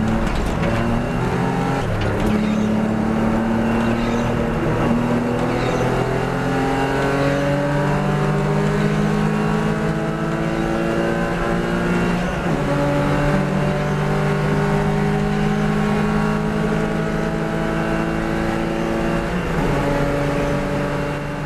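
Porsche Boxster S race car engine pulling hard under acceleration. Its pitch climbs slowly and drops back sharply at upshifts, clearly about halfway through and again near the end.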